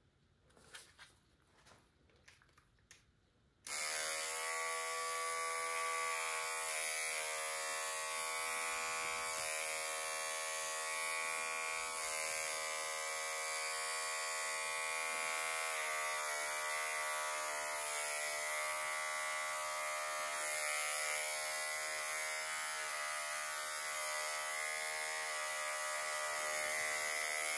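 A few faint handling clicks, then a small cordless pet hair trimmer switches on about four seconds in and runs with a steady buzz while trimming hair around a dog's ear.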